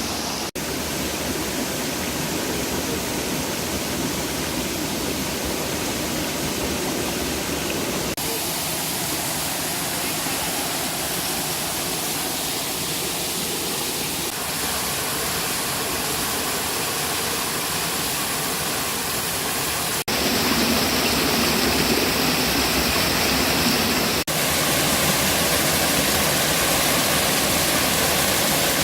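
Rushing water of a river and waterfall, a steady hiss-like roar. The sound changes abruptly a few times and gets louder about two-thirds of the way through.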